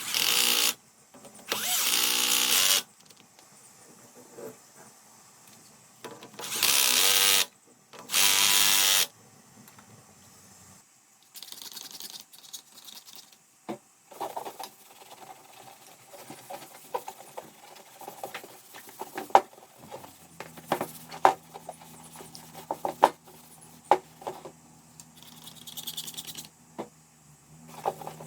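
A small electric power tool, such as a drill or driver, run in four short bursts of about a second each. Afterwards come scattered clicks and taps of small parts being handled, over a low steady hum.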